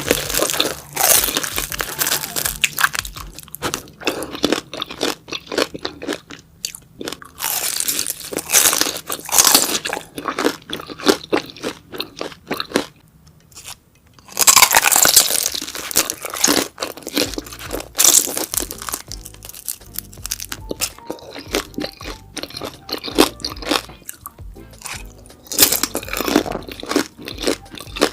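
Close-miked chewing and biting of beef large intestines: wet, crunchy mouth sounds in irregular bursts with short pauses, over background music.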